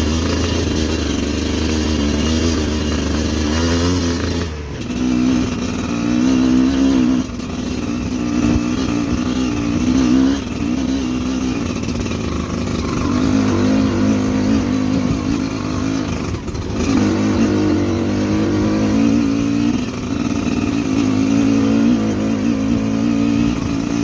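Motorcycle engine running while riding, its pitch rising and falling as the throttle is opened and eased, with two brief sharp drops.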